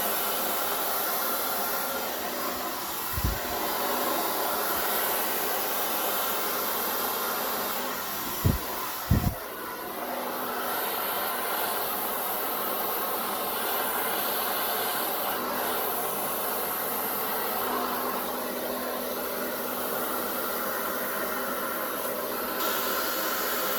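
Hair dryer running steadily, blowing air across wet acrylic pour paint to push it into a bloom. A few brief low thuds sound about 3 seconds in and twice around 8 to 9 seconds in.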